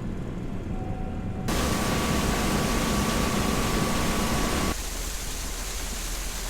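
Farm harvest machinery running steadily: an even rushing noise over a low rumble, in short clips cut together. The middle clip is louder, with a steady tone running through it.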